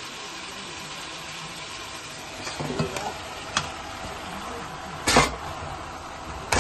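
Chunks of raw meat being put by hand into a metal pot, with a few knocks and a sharp click against the pot and one louder clatter about five seconds in, over a steady background hiss.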